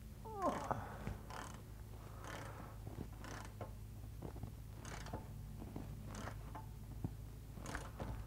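Socket wrench tightening the tapered drain plug into a Land Rover 90 rear axle casing, so that the plug is just nipped up tight. About half a second in there is a short squeal falling in pitch, then faint metal clicks from the wrench every second or so.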